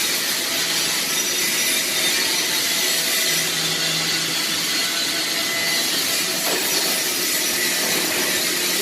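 Steady, even hissing noise from welding-shop equipment, unbroken and at a constant level.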